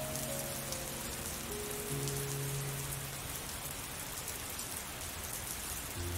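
Steady rain falling, an even patter, with soft slow music notes over it that fade out about halfway through and come back near the end.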